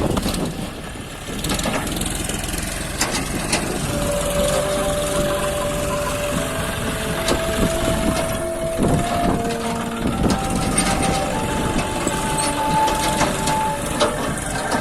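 John Deere 5050D tractor's 50 hp three-cylinder diesel engine running steadily under heavy load, with wind buffeting the microphone. About four seconds in, a string of held tones begins, each a step higher in pitch than the last.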